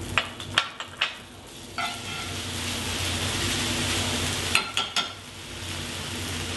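Forbidden rice and farro sizzling in duck fat in a hot cast iron skillet while a metal spoon stirs them. A few sharp clinks of the spoon against the pan come near the start and again about two-thirds of the way through.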